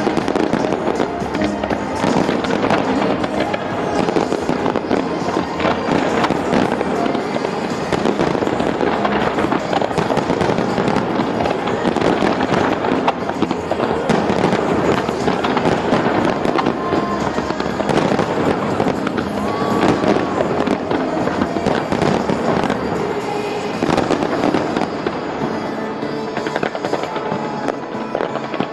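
Large fireworks display: a continuous barrage of shells bursting and crackling, easing a little near the end, with music playing alongside.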